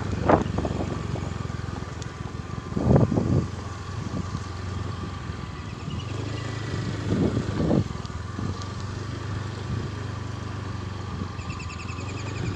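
Motorcycle engine running steadily while riding along a dirt road. Wind buffets the microphone in a few loud gusts, about 3 s and 7 to 8 s in.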